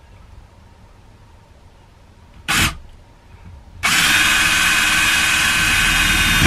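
Ryobi cordless drill with a 5/32-inch bit drilling a hole in the RV's wall: a short blip of the trigger, then about three seconds of steady drilling with a high motor whine, which stops as the bit goes through.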